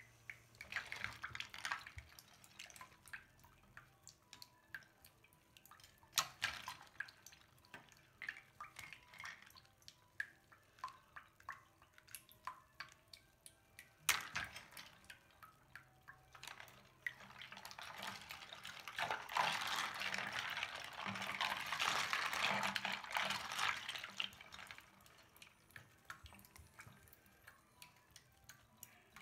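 Hands swishing through a sink of soapy water and lifting out small plastic figurines, with scattered drips and small splashes. About two-thirds of the way through comes a louder stretch of continuous sloshing lasting several seconds.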